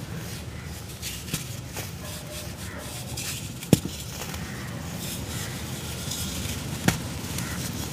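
Dry cast cement cones being broken and crumbled by hand, with gritty crunching and rustling of cement crumbs and dust. Two sharp snaps, about halfway in and near the end, stand out over a steady low hum.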